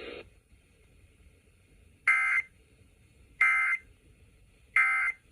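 Emergency Alert System End of Message signal: three short warbling data bursts of the EAS digital code, about a second and a third apart, marking the close of the alert.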